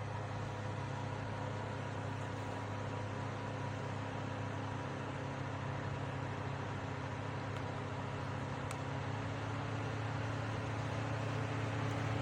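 Small dual-motor evaporative air cooler running: a steady fan whir over a low motor hum, growing slightly louder near the end.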